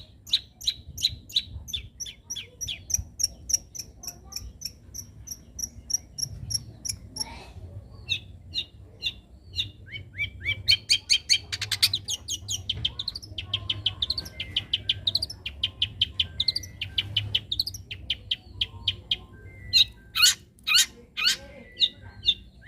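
Young long-tailed shrike singing: a long, busy run of sharp high chirps, first repeated evenly about three times a second, then quickening into fast strings of rising notes, with a few louder sharp calls near the end.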